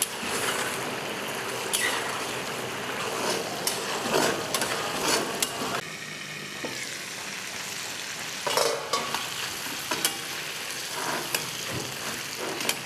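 Chicken pieces deep-frying in oil in a heavy iron karahi, a steady sizzle throughout. A metal utensil scrapes and clinks against the pan several times as the chicken is stirred while it browns.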